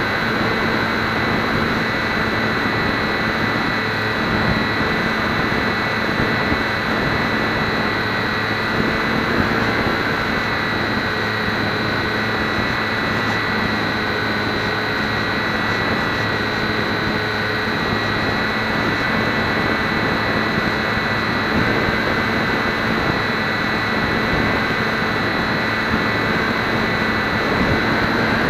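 HobbyZone Champ micro RC plane's small electric motor and propeller, recorded from on board in flight: a steady, unchanging whine over a constant rush of air.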